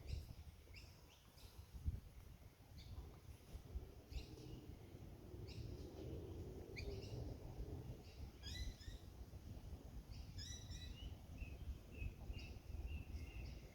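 Birds calling faintly, with short high calls repeated every second or two and a run of quick, even notes near the end, over a low rumble of wind on the microphone.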